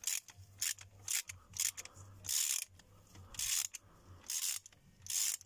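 Ratchet wrench on a spark plug socket extension, clicking in a series of short, irregular bursts as it is swung back and forth to loosen a spark plug from the cylinder head.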